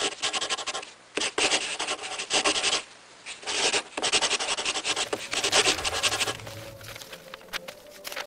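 Pencil scratching on paper in rapid strokes, in bursts with short breaks, turning quieter about two seconds before the end.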